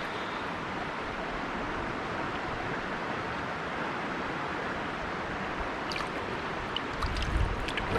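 Steady rush of a flowing river. A few faint clicks come near the end, along with a low rumble.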